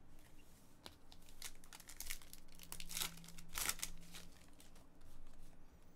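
Trading card pack wrapper crinkling and tearing as it is pulled open by hand, in irregular crackles that are loudest about three to four seconds in.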